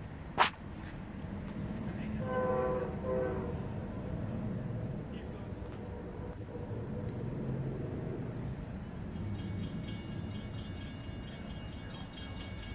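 Horn of an approaching Amtrak GE P42DC diesel locomotive sounding two blasts about two seconds in, over the low rumble of the train drawing near. A sharp click comes right at the start.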